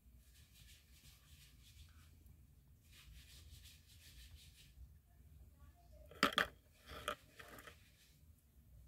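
Faint handling noise, then a short cluster of sharp clicks and knocks from small objects being moved, about six to seven and a half seconds in.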